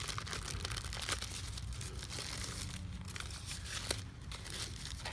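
Hands rustling and crinkling while working the plastic oil filter housing and its rubber O-ring, with a couple of sharp little clicks, one about a second in and one near four seconds in.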